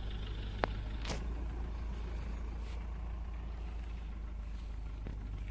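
Steady low rumble of a car engine and road noise from inside a moving vehicle, with a sharp click about half a second in.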